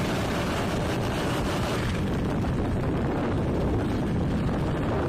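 Wind buffeting the microphone in the open: a steady rumbling noise, heaviest in the low end, with no engine whine.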